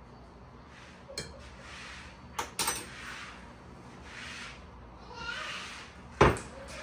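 Hands mixing and kneading soft gulab jamun dough in a glass bowl: soft squishing swells about once a second, broken by a few sharp knocks, the loudest near the end.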